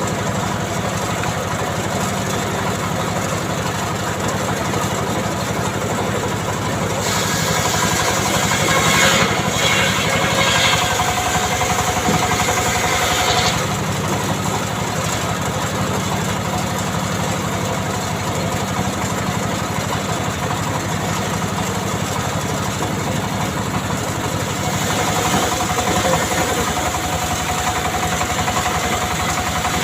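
An engine running steadily at an even speed. A harsher, higher sound joins it from about seven to thirteen seconds in and again near the end.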